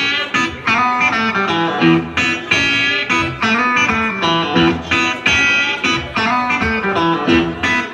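Live blues band playing, an electric guitar carrying the melody over the band's steady beat.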